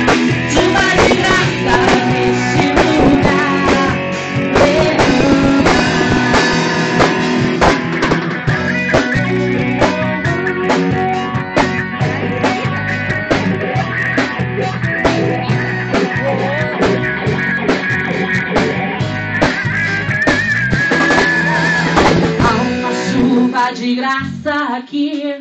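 Live band music: electric guitar over a drum kit, playing a worship song. The music thins out and drops in level near the end.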